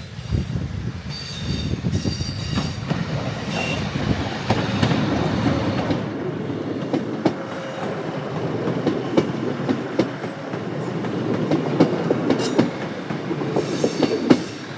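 Train running along the rails, with irregular clicking of the wheels over the track and a few brief high squeals.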